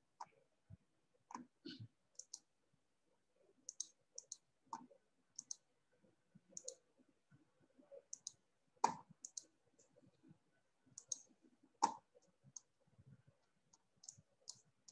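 Computer mouse clicks, scattered and light, many in quick pairs like double-clicks, with a few sharper clicks along the way.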